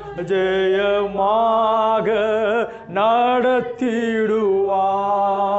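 A man singing a Tamil Christian hymn in slow, drawn-out lines. He holds each word on long notes whose pitch wavers, with short breaths between the phrases.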